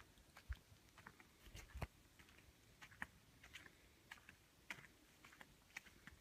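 Faint footsteps on a grassy, leaf-strewn path: soft irregular clicks and crunches, about one to two a second.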